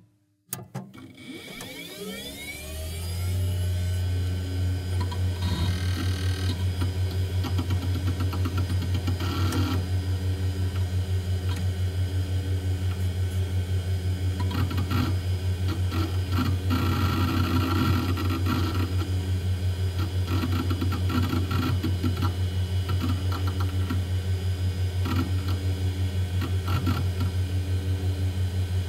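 Bathtub being filled from the tap: water running steadily with a strong low hum and a faint regular pulsing, building up over the first few seconds after a click.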